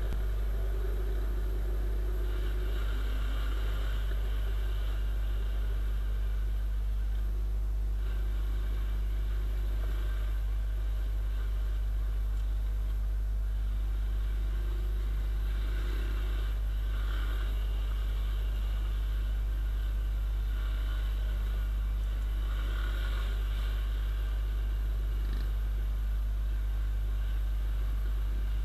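Viper 150 motorcycle's single-cylinder four-stroke engine running at road speed while riding, with wind on the microphone, a steady low rumble that barely changes in level.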